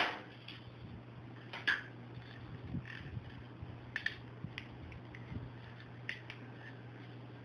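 Handling noise: scattered small clicks and taps as a camcorder is held and moved, over a steady low hum.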